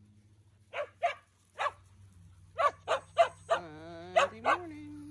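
A pack of dogs barking: about eight short, sharp barks in uneven clusters. About halfway through, one dog starts a long, wavering howl that rises and holds, over a faint, low, steady hum.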